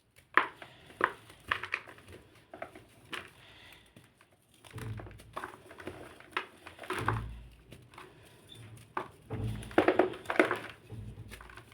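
Black-dyed crunchy and soft blocks being crushed: a run of irregular sharp crunches and crumbles, with heavier dull thuds mixed in around the middle and near the end.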